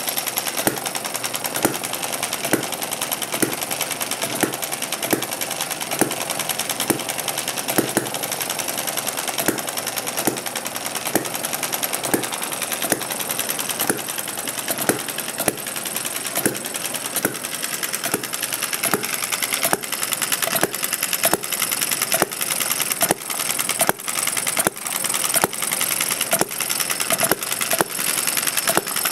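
Miniature Kerzel-design hit-and-miss engine (3/4-inch bore, short stroke) running: sharp pops repeat roughly every half second over a fast, steady mechanical clicking.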